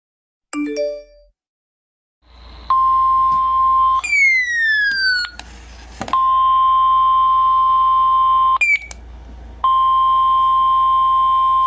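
Weather radio's 1050 Hz warning alarm tone, the signal that a warning broadcast follows: a loud, steady single tone that sounds in three long stretches. The tone is broken near the middle by falling whistle-like glides and a short burst of hiss, and by a brief chirp about nine seconds in. A few short rising notes come before the tone starts.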